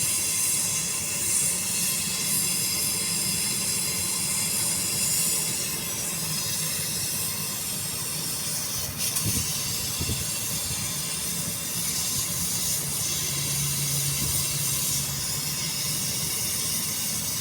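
A steady hiss with a low hum beneath it that fades in and out.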